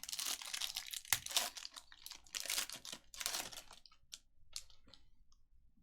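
Trading-card pack wrapper crinkling and tearing as it is opened, dense rustling for about three seconds, then a few light clicks as the cards are handled.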